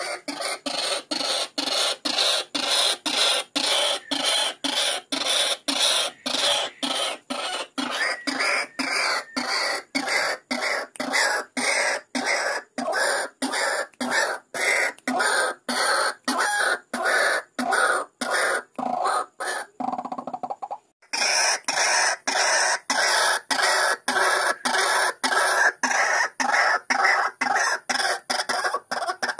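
Lure recording of white-breasted waterhen calls, the bird's harsh repeated 'ruak-ruak' croaks edited into a fast, unbroken run of about two calls a second. There is a brief break about twenty seconds in. It is used as bait to draw a territorial waterhen to a mirror trap.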